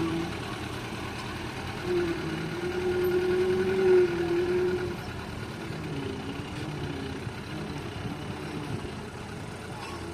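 Hitachi hydraulic excavator running at work: a steady engine with a wavering whine on top. The whine grows louder about two seconds in and eases off after about five seconds.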